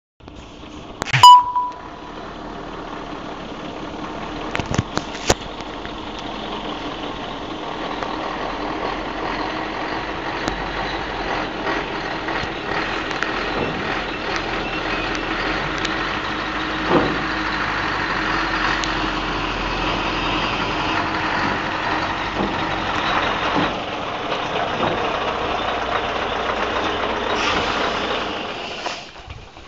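Scania 143M 470's V8 diesel engine running as the truck rolls slowly closer, growing gradually louder before it drops away near the end. A short, loud beep sounds about a second in.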